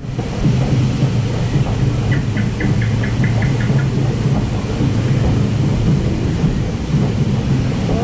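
Lift conveyor of a river-rapids ride hauling a round raft up its slatted ramp: a steady low mechanical rumble and rattle. About two seconds in, a quick run of about eight short high ticks sounds over it.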